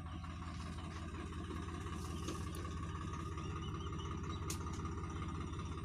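Swaraj 744 FE tractor's three-cylinder diesel engine running steadily.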